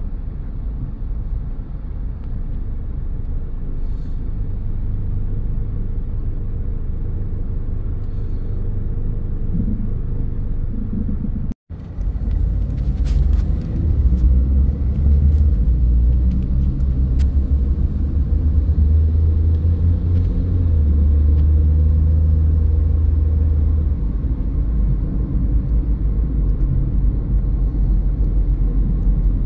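Steady low rumble of a car on the move, with engine and tyre noise. The sound cuts out for a split second about eleven seconds in.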